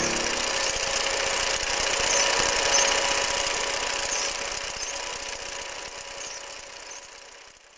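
Film projector running: a rapid mechanical clatter with hiss and a faint steady whine, fading away toward the end.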